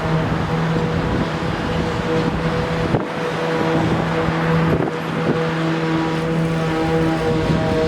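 An engine or machine running at a steady speed, giving a constant hum over a noisy rumble.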